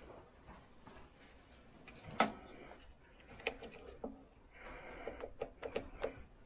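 Plastic clicks from the mini lathe's push-button switch box and controls being worked by hand: one sharp click about two seconds in, another a second or so later, then a quick run of smaller clicks near the end. No motor starts: the lathe will not power on.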